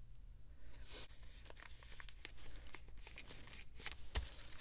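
Photocards and plastic binder sleeves being handled: soft crinkling and sliding with scattered light clicks, and a sharper tap near the end.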